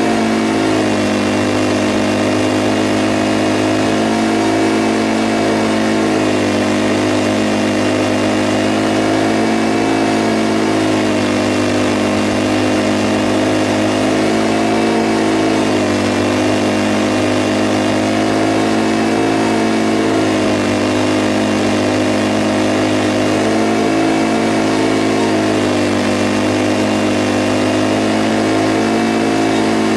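Scag V-Ride stand-on mower's engine running steadily while mowing, its pitch dipping slightly and recovering every few seconds as the load changes.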